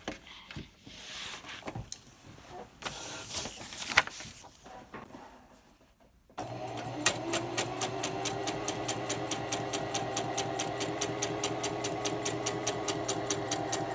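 Singer 4423 heavy-duty sewing machine being test-run after threading. A few handling clicks and rustles come first. About six seconds in, the motor starts and it sews steadily, the needle clicking in a fast, even rhythm.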